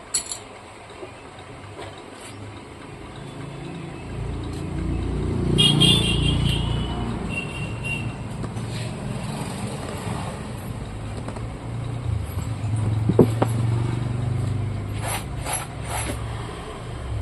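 A motor vehicle's engine rumbles, swelling about five or six seconds in with a brief high squeal, then settles to a steadier low hum. A few sharp metallic clicks come near the end.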